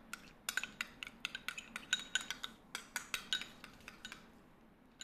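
Metal spoon stirring sriracha mayonnaise in a glass jar, clinking rapidly against the glass for about three seconds before it thins out and stops.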